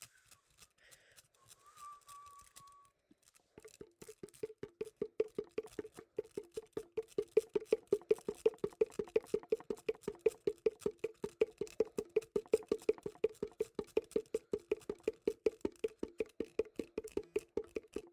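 Slit drum knocked in a fast, even pattern, about four to five hollow wooden beats a second, standing in for a racing heartbeat; it starts a few seconds in and grows louder. Before it, a faint held whistled note.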